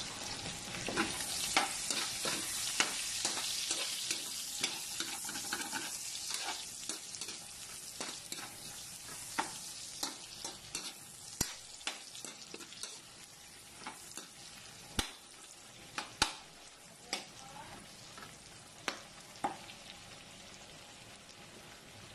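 Chopped ginger, onion and garlic sizzling in hot oil in an aluminium wok as they are stirred, with sharp taps of the utensil against the pan. The sizzle is loudest in the first few seconds and dies down, leaving scattered taps and scrapes.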